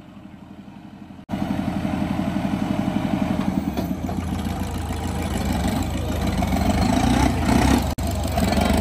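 Tractor diesel engine running with a fast, even clatter. It is faint at first, then suddenly much louder about a second in.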